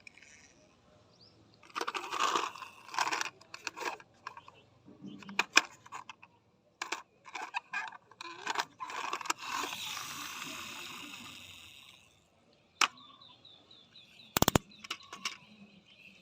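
Toy packaging and small diecast toys being handled: scattered clicks and taps with short bursts of rustling, and a longer rustle that fades out about twelve seconds in.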